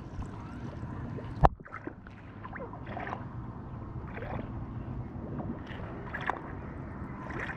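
Small splashes and water lapping against the side of a boat as a smallmouth bass is released from the hand, over a low steady rumble. One sharp knock sounds about a second and a half in.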